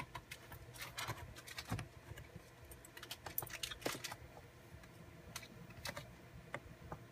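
Irregular light clicks and taps of hands working a Dell Inspiron 3520 laptop, keys and plastic case being pressed, in scattered clusters.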